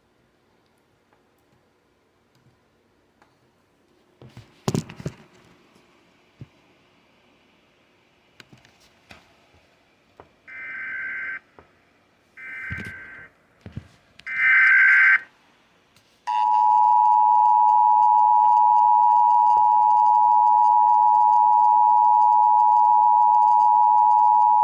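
Emergency Alert System broadcast: three short bursts of warbling SAME data-header tones, then the steady two-tone attention signal for about eight seconds, announcing a National Weather Service flash flood warning. A few clicks come before it, about five seconds in.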